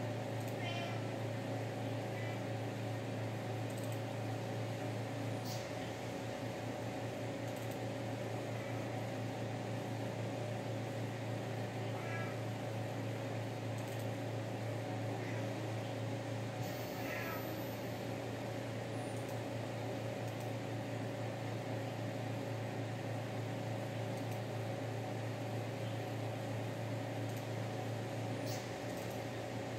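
Domestic cat meowing several times a few seconds apart to be fed, the loudest call about 17 seconds in, over a steady background hum.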